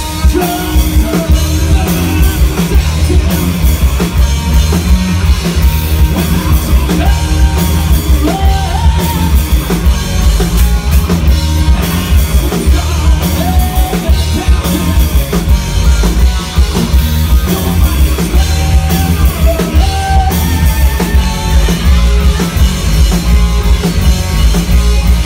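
Live rock band playing loud: electric guitars, bass guitar and drum kit, with a vocalist singing into a microphone.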